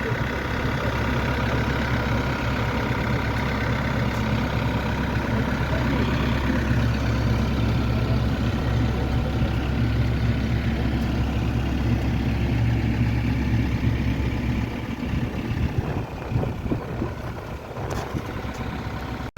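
A large engine idling steadily, with a low even hum that cuts out about fifteen seconds in.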